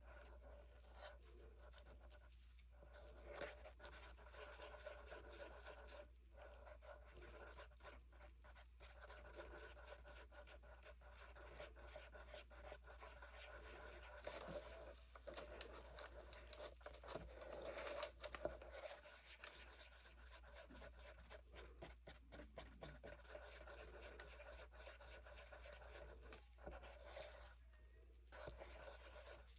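Near silence: faint scratching and light clicks of small handling over a low steady hum.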